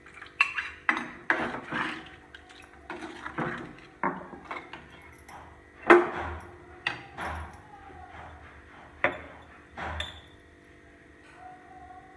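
A slotted metal spoon knocking and scraping against an earthenware cooking pot as a curry is stirred: a string of separate clinks and scrapes, the loudest about six seconds in.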